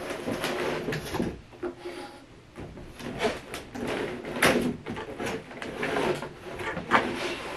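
A clear plastic figure tray being slid out of a large cardboard box: scraping of plastic against cardboard, with irregular clicks and knocks.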